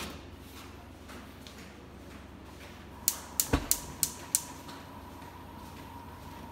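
Gas cooktop burner being lit: the electric spark igniter clicks about six times in a second and a half, with a soft low thump as the gas catches on the large wok burner. A faint steady high tone follows while the burner burns.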